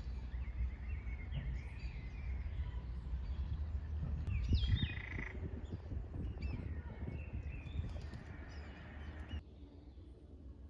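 Birds chirping and calling, with a louder burst of calls about halfway through, over a low rumble that drops away suddenly near the end.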